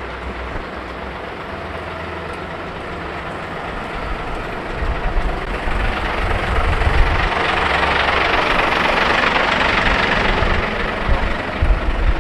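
Large truck's engine idling: a steady low rumble with a rushing hiss that grows louder over several seconds and then eases off near the end.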